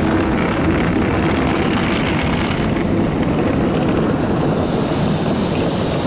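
Rotating wash brushes of a NuStar Soft Touch Plus automatic car wash making a brush pass over a truck, a loud, steady whirring churn.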